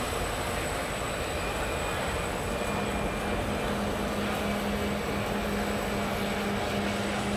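Motor and water-jet drive of a radio-controlled model jet ferry running at speed across the water: a steady mechanical hum, with a steady low tone coming in about two and a half seconds in.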